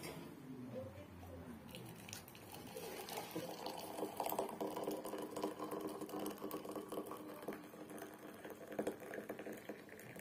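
Water being poured off-camera, a continuous liquid rush with a few light clinks.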